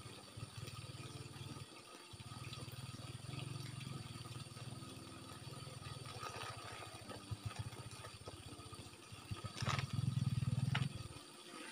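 Faint low drone of a small engine running steadily, swelling louder near the end. Over it come a few light clicks and rattles of plastic bottles and caps being handled.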